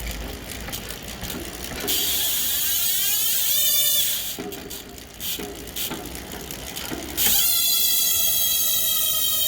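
Industry Nine Hydra bicycle hub freshly repacked with grease, its freewheel ratchet buzzing at a high pitch. It clicks more quietly at first, then gives a loud buzz about two seconds in that fades before four seconds. Ticks follow, and a loud steady buzz returns about seven seconds in.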